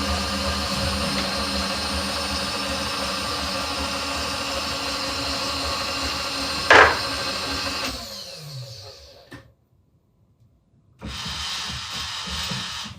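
Milling machine running steadily with a motor hum, then switched off about eight seconds in, its pitch falling as the spindle winds down. A brief sharp sound comes shortly before the switch-off, and a steady machine noise starts up again near the end after a short quiet gap.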